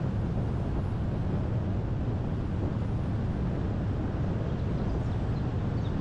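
Steady low rumble of road and engine noise from a car driving, heard from inside the cabin, with a few faint high chirps near the end.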